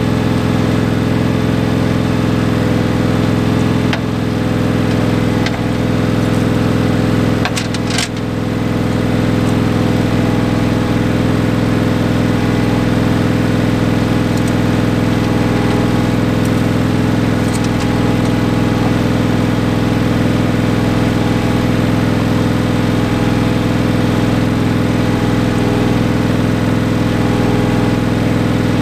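Ingersoll 7020L tractor engine running steadily in place. A few sharp clicks come with a brief dip in its sound about eight seconds in, and there is a smaller dip near four seconds.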